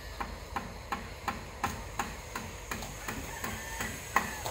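Hammering at a steady rhythm, about three blows a second, with one louder blow near the end.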